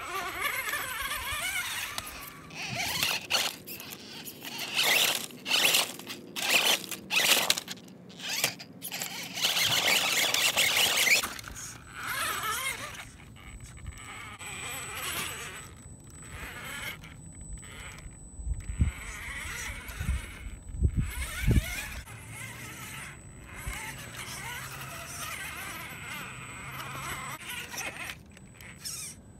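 Axial Wraith RC rock racer crawling over sandstone: its electric motor and geared drivetrain whine in short stop-start bursts of throttle, with tyres scraping on the rock. A few dull low thumps come about two-thirds of the way through.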